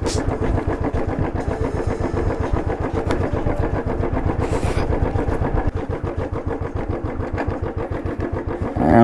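Royal Enfield Bullet single-cylinder motorcycle engine running at low revs, its firing pulses coming in a steady, rapid beat.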